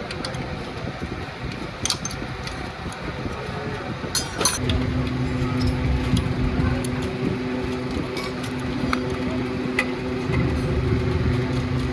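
Metal clinks and taps, then about four and a half seconds in a motor starts and runs steadily with a constant hum.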